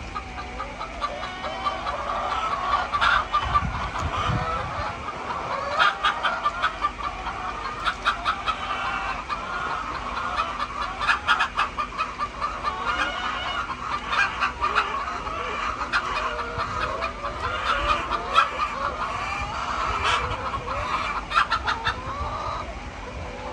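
A flock of laying hens clucking and calling over one another, with many short overlapping calls and sharp clucks throughout.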